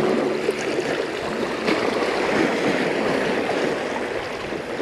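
Small waves washing against the rocks of a seawall, with wind rushing on the microphone in a steady, even noise.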